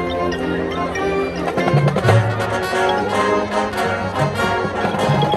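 Music with brass instruments and percussion playing a lively melody.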